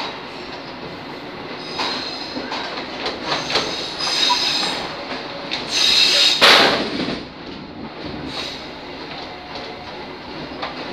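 Local diesel railcar train (KRD) rolling along the track, heard from its rear cab: wheels clicking over rail joints, with high wheel squeal building about four seconds in and a loud screech about six seconds in.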